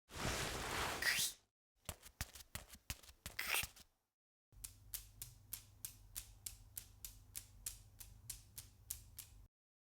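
Homemade sound effects: a short noisy whoosh that rises in pitch, then a few scattered clicks, then a steady run of sharp clicks about three a second.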